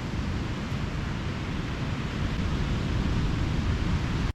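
Steady rushing of the sea and wind at a beach, with no distinct events, growing slightly louder toward the end.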